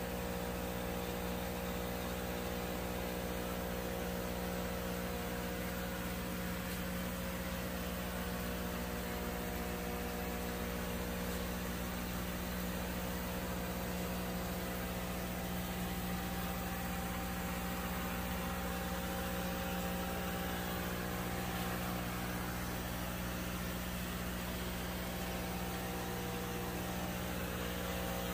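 Steady mechanical hum with a constant hiss, unchanging throughout, with several low steady tones.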